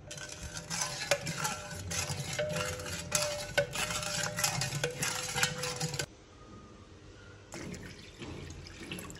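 A plastic ladle stirring sugar and Tang powder into water in a metal pot, scraping and clinking against the sides, stopping abruptly about six seconds in. Near the end, water is poured into the pot from a jug.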